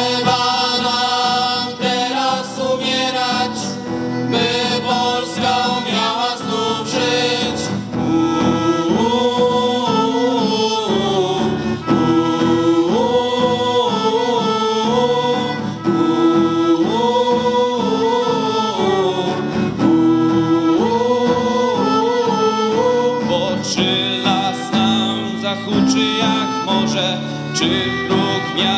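Live band performing a song: several voices singing a melody together over acoustic guitar accompaniment.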